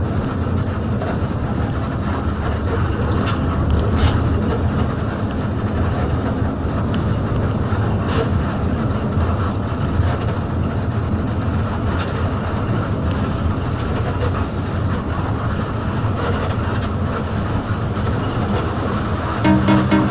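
Steady low rumble of a moving bus's engine and tyres heard from inside the cab, with a few faint clicks and rattles. Music comes in just before the end.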